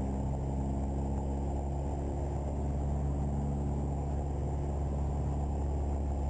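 Piper Archer's four-cylinder Lycoming O-360 engine held at a steady 2000 RPM for the pre-takeoff run-up, mixture full rich, heard from inside the cockpit as an even, muffled drone.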